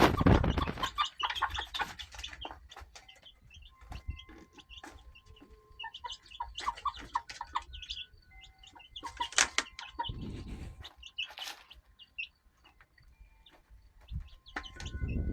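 Backyard chickens clucking, with short calls and held notes coming and going throughout, broken by a few low rumbling bursts.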